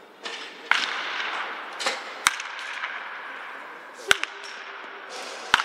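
Baseball bat striking pitched balls in batting practice: sharp, loud cracks of contact, the clearest about every one and a half to two seconds, with a few softer knocks between them.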